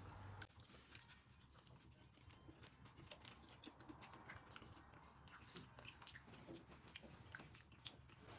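Faint chewing, with many small sharp mouth clicks, of someone eating a banana.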